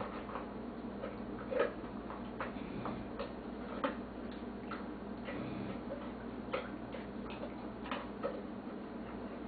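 A dog eating from a bowl: irregular sharp clicks, a few a second, with louder ones about one and a half and four seconds in, over a steady low hum.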